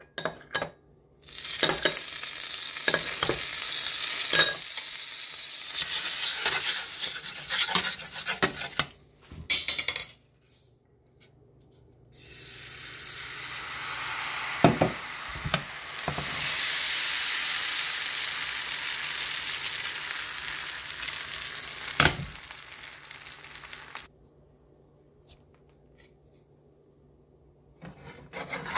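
Hot nonstick crepe pan sizzling in two long stretches: first as melted butter is brushed on, then as crepe batter is poured in and spread, with a few sharp clinks of the brush, dish and jug. The sizzle stops abruptly, and near the end a silicone spatula clicks and scrapes at the crepe's edge.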